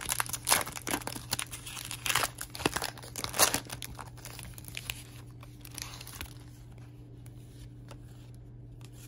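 Foil trading-card pack wrapper being torn open and crinkled by hand, in sharp crackles for the first four seconds or so. It then quietens to a few light rustles as the cards are slid out, over a steady low hum.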